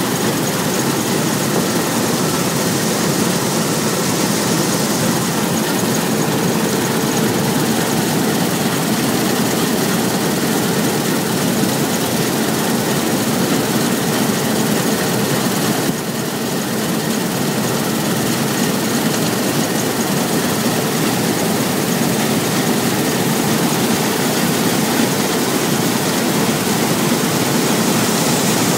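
Claas Lexion 600 combine harvester running steadily at work, its engine and threshing machinery making a dense, even noise with a faint held hum; the sound dips briefly about halfway through.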